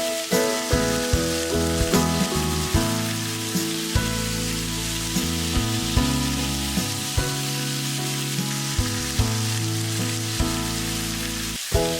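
Background music with a steady beat, over the steady sizzle of food frying in a pan.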